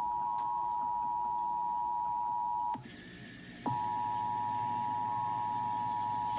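Emergency Alert System two-tone attention signal: two steady sine tones (853 and 960 Hz) sounding together. It breaks off for about a second a little under three seconds in, then resumes. It is the tone that precedes the broadcast test message.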